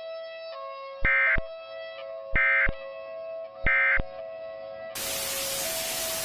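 Three short bursts of EAS SAME digital data tones, just over a second apart: the end-of-message signal that closes an Emergency Alert System broadcast. About a second later comes a second or so of loud static hiss. Soft background music with held tones plays underneath.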